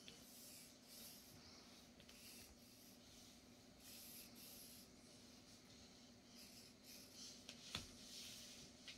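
Faint scratching of a pencil on paper, in short repeated strokes as it sketches, with a sharp click about three-quarters of the way through.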